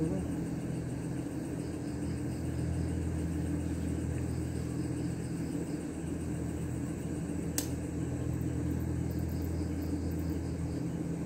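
A steady low machine hum runs throughout, with a single sharp click about seven and a half seconds in.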